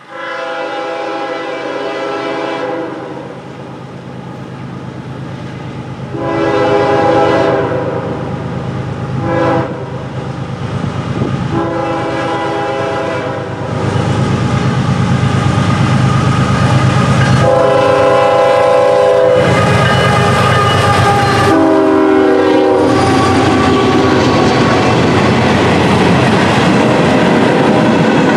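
Diesel freight locomotive's air horn sounding the grade-crossing signal: two long blasts, a short one and a long one, then two more long blasts. Under it the locomotives' engines grow louder as the train arrives, and from about halfway the long string of freight and tank cars rolls past steadily.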